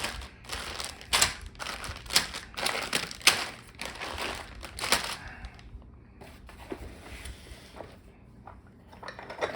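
Plastic router letter and number templates and their packaging being handled and set aside: a run of sharp clicks and knocks for about five seconds, then quieter rustling and the odd tap.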